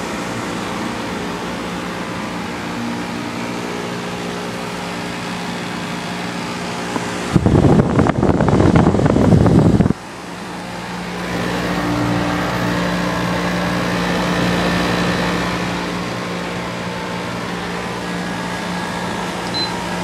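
Maytag 45-pint dehumidifier running with a steady hum from its fan and compressor; the loud rattle in the hum comes from the water bucket vibrating with the compressor. A much louder rushing noise lasts about three seconds near the middle.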